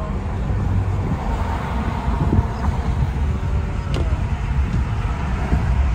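Road noise heard from inside a moving car's cabin: a steady low rumble of tyres and engine at cruising speed.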